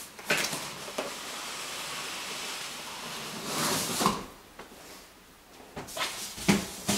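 Cardboard scraping and rustling as a retail toy box is slid out of a cardboard shipping carton: a knock at the start, a long steady scrape that grows louder about four seconds in, then a few knocks from the boxes near the end.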